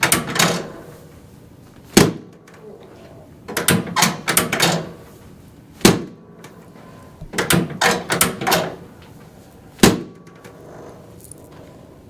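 Sharp knocks and clacks during a chiropractic adjustment on a treatment table, in three rounds about four seconds apart: a short cluster of knocks, then one single loud knock.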